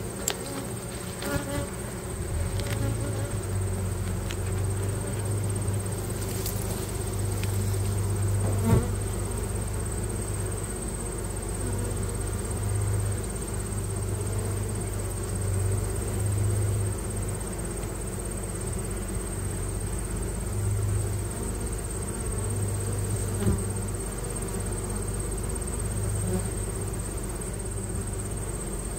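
Honeybees buzzing at a hive entrance: a steady, wavering drone of many foragers flying in and out. There is a single sharp knock about nine seconds in.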